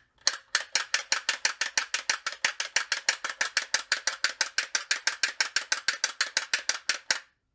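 Rolls Razor blade being stropped in its case: the blade carriage is worked rapidly back and forth along the built-in leather strop, and the blade drops over with a sharp click at each end of the stroke. It makes a fast, even, fairly loud clicking, about seven clicks a second, that stops abruptly near the end.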